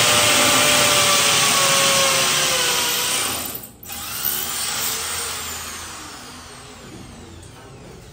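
A power tool's motor running steadily, stopping about three and a half seconds in; a whine then slides down in pitch and fades as it spins down.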